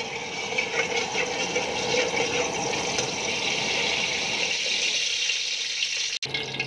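Cooking oil sizzling in a hot steel wok as it is ladled in, a steady hiss that starts suddenly and cuts off near the end.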